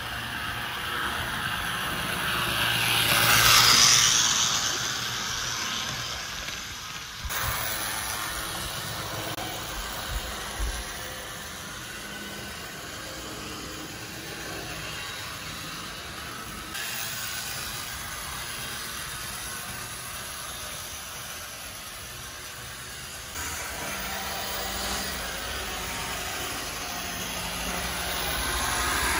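Vintage Life-Like F-unit model locomotive hauling a train around the track, its small electric motor and freshly cleaned gearbox humming and the wheels rattling along the rails. The noise swells to its loudest about four seconds in as the train comes close, and shifts in level abruptly a few times.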